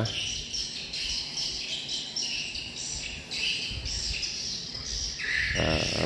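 Swiftlet call sound played through tweeter speakers at a swiftlet house's bird entry hole: a steady string of short, high chirps.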